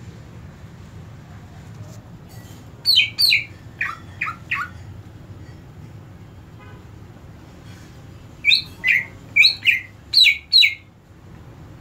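Cucak ijo (greater green leafbird) in a covered cage calling in loud, short, falling whistled notes: two high notes about three seconds in, three lower ones right after, then six more in quick pairs near the end. This is its ringing 'ngeplong' voice: a bird that had stopped singing is beginning to sound again.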